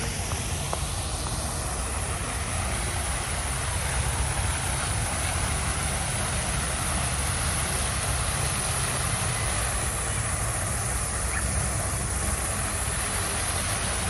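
Steady rushing and splashing of a fountain's water jets falling into a pond, with a continuous low rumble underneath.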